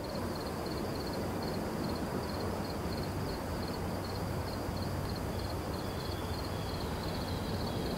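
Crickets chirping in an even, repeating pulse over a low, steady rumble from a distant train approaching.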